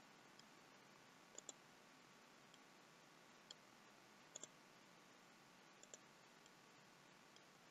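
Faint computer mouse clicks against near silence: a few single clicks and three quick double clicks.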